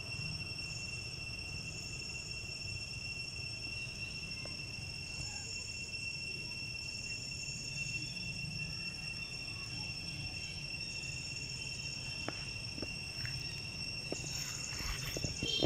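Insects droning steadily, a high-pitched tone that holds unbroken, over a low rumble. A few short clicks and scuffs come in near the end.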